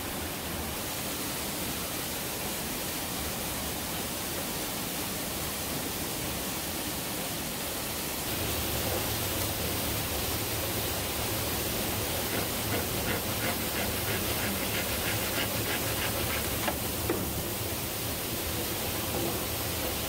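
Steady rushing roar of a waterfall that grows louder about eight seconds in, with faint ticks and knocks over it in the second half.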